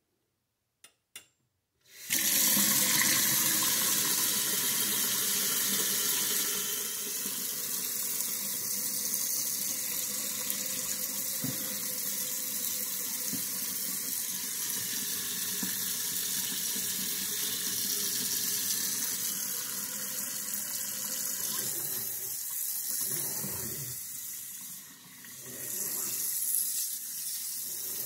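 Two faint clicks, then water from a stainless steel pull-down kitchen faucet starts about two seconds in and runs steadily into a stainless steel sink basin, loudest just after it starts. Near the end the sound briefly drops and then comes back.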